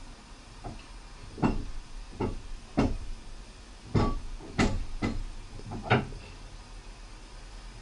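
A series of about eight irregular knocks and clunks over a steady low rumble.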